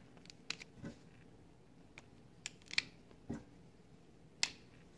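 Scattered light plastic clicks and knocks from a Lego-brick Luger P08 being handled and readied to fire, with the sharpest click near the end.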